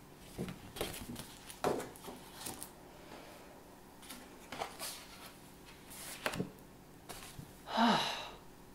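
Paper picture cards being handled and swapped: scattered rustles and light taps of card and paper. Near the end comes a short voiced breath.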